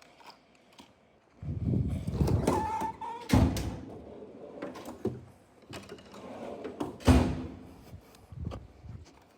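A few knocks and thumps, the two loudest sharp impacts about three and a half and seven seconds in, after a rough rustling stretch.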